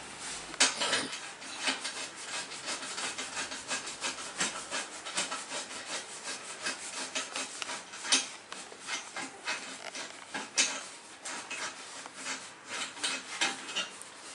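Bolts and nuts being fitted and tightened by hand on a trike's steel tube frame: an irregular run of small metal clicks and scrapes.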